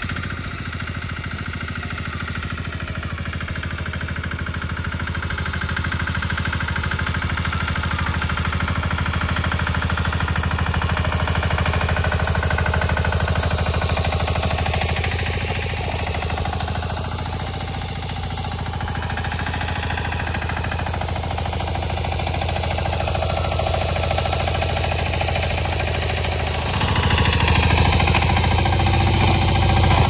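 An engine running steadily with a low, even pulsing; it grows louder about three seconds before the end.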